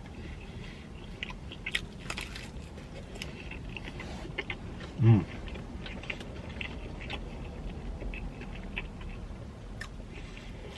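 Close-up chewing and biting of pepperoni pizza: scattered small wet clicks and crunches of a mouth eating, with a brief hummed "mm" about halfway through.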